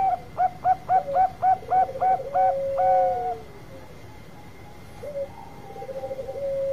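Zebra dove (perkutut, Bangkok type) singing: a quick run of about nine clear, evenly spaced coos ending in one longer held note. Beneath it runs a lower rolling trill that slides down at its end, and the lower trill comes again near the end.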